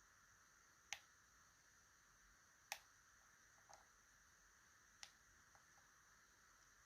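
Faint, sharp metallic clicks of a lock pick working the pins of a TESA T80 lock, three clear clicks spaced about two seconds apart with a softer one between, over a steady faint hiss.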